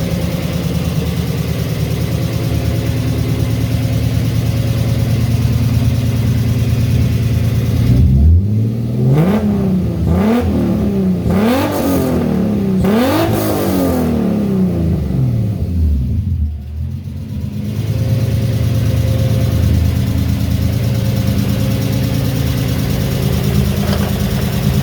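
BMW E30's rebuilt 2.8-litre single-VANOS straight-six idling through its exhaust. About eight seconds in it is blipped about five times in quick succession, the pitch rising and falling with each rev, before it settles back to a steady idle.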